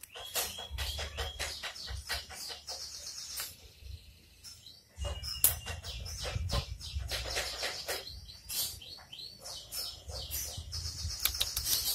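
Small birds chirping, with many short, high chirps repeated in quick runs and a brief lull about four seconds in. A low rumble runs underneath.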